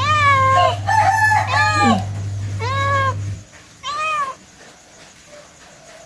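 Calico cat meowing loudly: about four drawn-out meows in the first four seconds, one running into the next. A steady low hum runs underneath and stops about three and a half seconds in.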